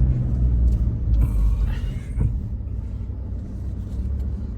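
A four-wheel-drive vehicle driving over a rough dirt road, heard from inside the cabin: a low, steady rumble with a few short knocks and rattles, easing off after about two seconds.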